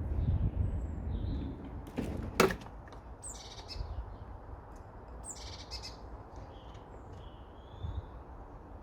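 Small songbirds chirping in short calls several times, with one sharp knock a little over two seconds in. A low rumble underneath fades during the first two seconds.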